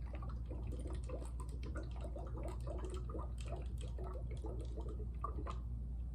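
Water gurgling and dripping as it drains from the upper plastic bottle through a tube connector into the lower one, a rapid string of small bubbly glugs.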